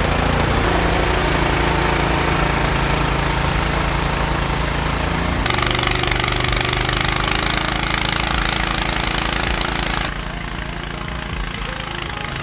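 An engine running steadily under a loud, harsh rattling noise. The sound changes abruptly about five seconds in and again near ten seconds.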